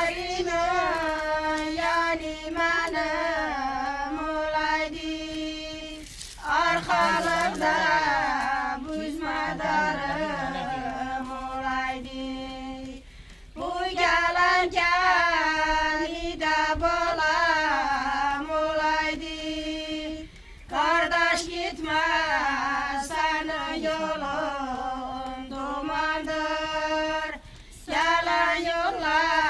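A single voice singing a slow, ornamented melody, holding long wavering notes in phrases about seven seconds long with brief pauses between them.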